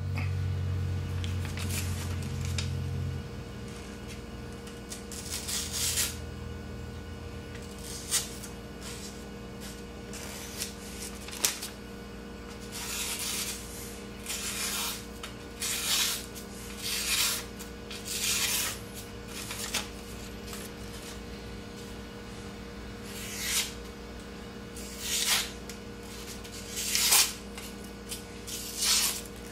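A 1080 high-carbon steel knife blade cutting through a wooden board, in a series of irregular scraping strokes, some short and some about a second long, with a few sharp clicks. A low hum sounds for the first three seconds.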